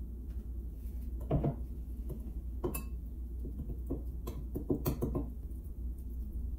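Metal spoon clinking and scraping against a glass mixing bowl while a spice marinade is stirred: a few separate taps, then a quick run of clinks around four to five seconds in, over a low steady hum.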